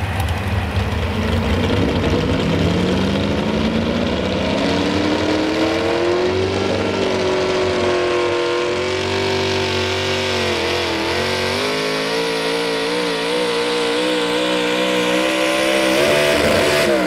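Modified 4x4 pulling truck's engine running hard under load. The revs climb steadily over the first several seconds, hold high with a wavering pitch, then drop sharply at the very end.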